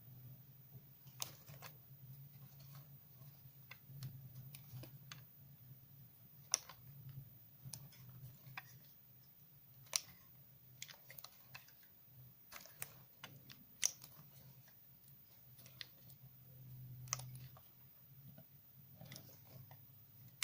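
Soap coated in washing powder being crunched and worked by hand: scattered crisp crackles and clicks, a few sharper snaps standing out, over a faint low hum.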